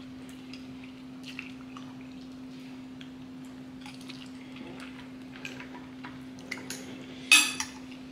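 Eating at the table: scattered small clicks of cutlery on dishes and wet mouth sounds, with one louder clatter about seven seconds in. A steady low hum runs underneath.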